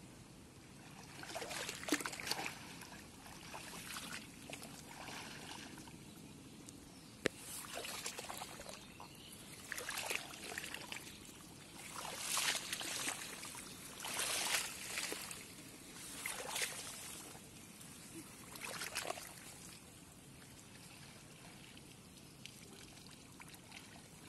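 Water sloshing and splashing with each stride as a person wades thigh-deep through shallow weedy water, about one surge every two seconds. A single sharp click comes a little past seven seconds in.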